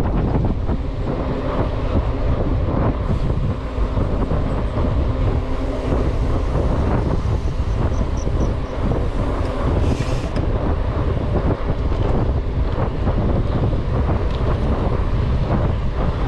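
Steady wind buffeting the microphone of a camera riding on a mountain bike moving at speed on a concrete road.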